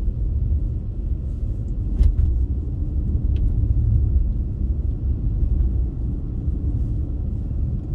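Steady low rumble of a car driving on a snow-packed road, heard from inside the cabin: tyre and engine noise. A single sharp knock comes about two seconds in.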